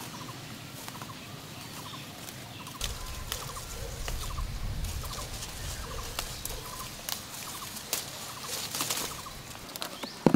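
Domestic poultry calling again and again in short, quick runs of notes, with scattered sharp clicks.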